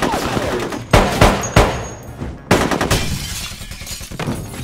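Pistol gunshot sound effects: about five sharp shots in the first two and a half seconds, each trailing off in a reverberant tail, followed by glass breaking near the end.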